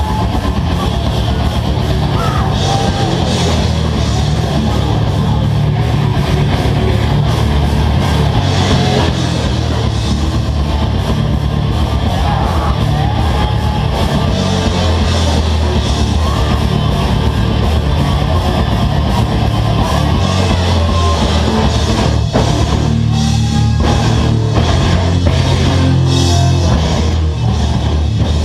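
A live heavy rock band playing loud, with distorted electric guitars, bass and drum kit, heard from inside the crowd. The music stops sharply for a moment a couple of times near three-quarters of the way through.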